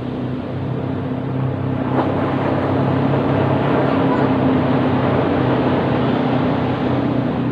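Ocean surf washing steadily on a beach, swelling slightly about two seconds in, with a steady low hum running underneath and a single click about two seconds in.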